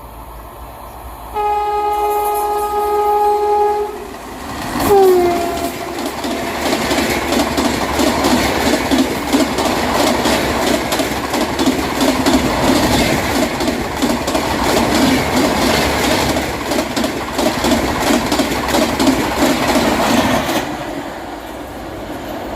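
Express train passing through a station at speed: a long steady horn blast, then a short second blast that drops in pitch as the locomotive goes by. Then comes the steady rumble and rapid wheel clatter of the coaches for about fifteen seconds, falling away near the end.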